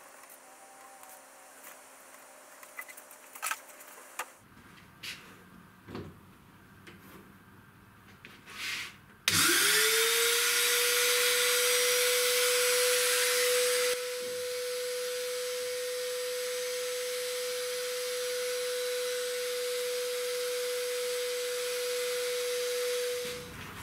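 A few light handling clicks, then a CNC router's trim-router spindle switches on about nine seconds in: its whine rises and settles at one high steady pitch over a hissing rush. About five seconds later it becomes clearly quieter as the enclosure front is shut around it, and it runs steadily until it is switched off near the end.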